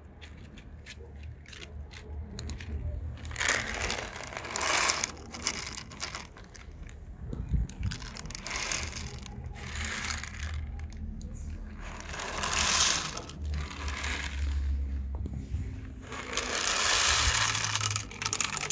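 Dry cat kibble poured from a plastic jug onto a plate and paving stones, rattling out in several short pours, the longest near the end.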